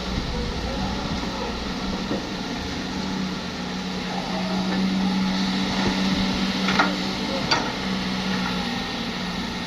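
Heavy-equipment diesel engine running steadily with a low hum, with two sharp knocks about seven seconds in.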